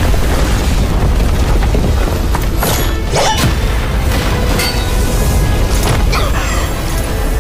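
Animated fight sound effects of a magic fire attack: a deep, rumbling boom with sharp blasting hits clustered around three seconds in and again near six seconds in, over dramatic music.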